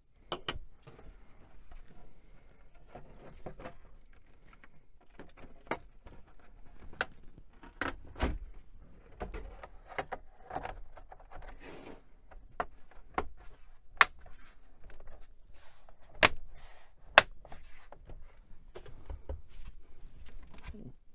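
Irregular clicks, clacks and knocks of an old desktop computer's case and parts being handled and fitted back together, with a few sharper knocks around the middle.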